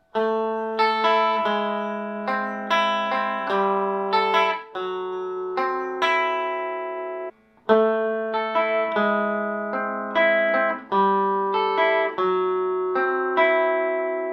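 Electric guitar, a Fender Telecaster played clean through a Fender '57 Tweed Twin amp with no effects. Chords and single notes are struck and left to ring, with a short break about seven seconds in before the playing resumes.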